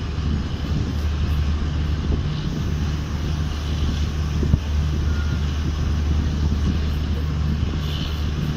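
Passenger train running at speed, heard from an open coach doorway: a steady low drone and rumble with wind noise, and one sharp knock about four and a half seconds in.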